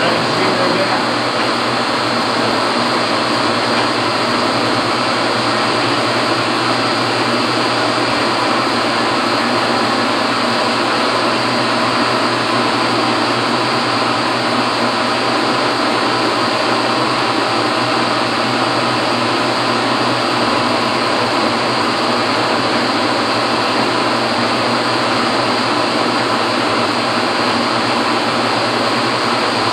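Steady machine running noise: an even rushing hiss over a low motor hum, unchanging throughout.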